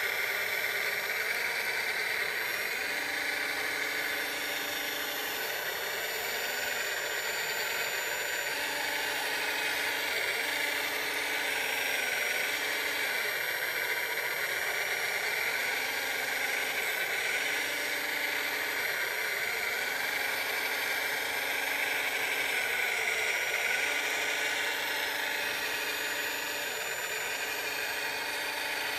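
Electric motors of a radio-controlled scale wheel loader whirring in short spells of a second or two, stopping and starting as it drives and works its bucket, over a steady high hiss.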